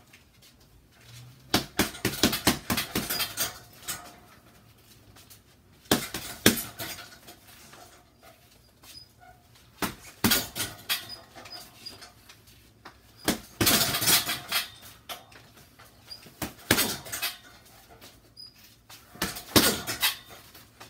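Boxing gloves striking a hanging punching bag in quick combinations: about six bursts of several rapid blows, with short pauses between them.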